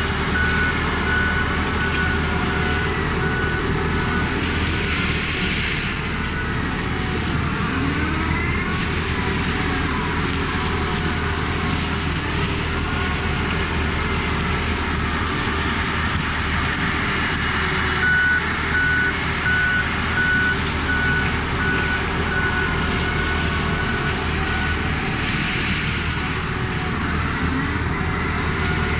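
Mini excavator's diesel engine running steadily, with its travel alarm beeping in an even series during the first few seconds and again for several seconds past the middle.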